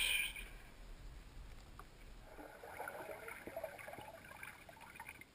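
A brief rush of water noise at the start, then faint underwater bubbling and crackling with small clicks, muffled as heard through a submerged camera.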